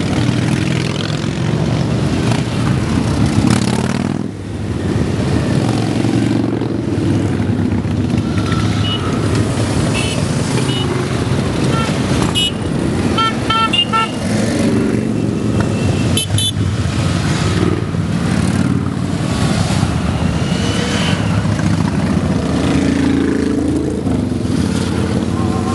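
A procession of motorcycles riding past, their engines running and revving unevenly. About halfway through, a rapid string of short horn beeps sounds, with another brief beep a couple of seconds later.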